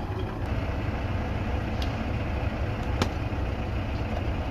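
Nissan Diesel dump truck's diesel engine idling steadily, with a few brief sharp clicks, the loudest about three seconds in.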